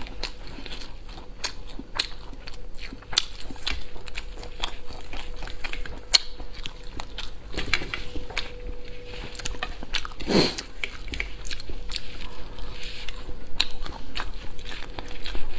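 A person chewing and biting crispy fried food close to a clip-on microphone, with many sharp crisp crunches and mouth sounds. There is one louder, longer mouth sound about ten seconds in, and a faint steady hum underneath.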